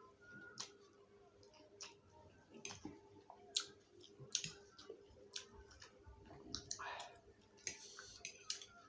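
Close-miked eating of spicy instant noodles: scattered wet mouth clicks and smacks of chewing, with a longer hissing sound about seven seconds in.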